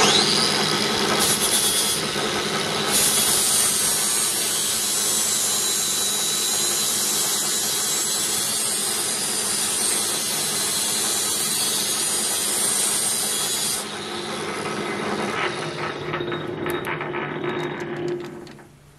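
Angle grinder with a flap disc grinding the head of a steel M6 bolt that spins in a lathe chuck, rounding the bolt head into a dome. The lathe and grinder run throughout, with a bright, high-pitched grinding from about three seconds in to about fourteen. The noise then eases and dies away near the end.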